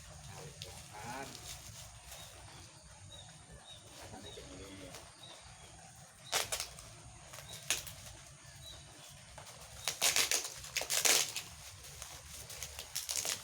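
Plastic packaging rustling and crinkling in several loud bursts as a parcel is handled and opened, with faint small-bird chirps in the background.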